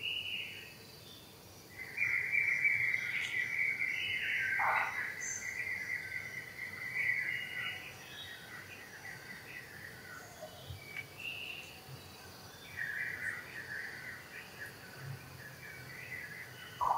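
Insects buzzing in a steady high drone that starts about two seconds in and runs for about six seconds, then a second, shorter drone later on, with scattered short bird chirps and one brief falling call.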